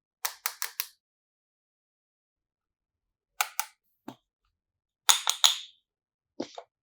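Sharp clicks and pops in quick clusters from hands working slime and clay: four rapid clicks near the start, a pair midway, three more near the end and a last single one.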